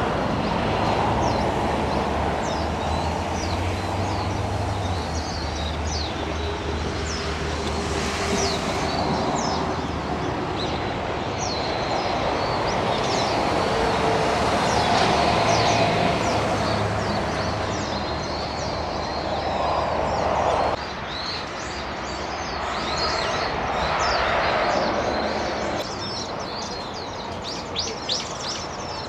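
Outdoor ambience: many short bird chirps over a steady low rumble, which drops away abruptly about 21 seconds in.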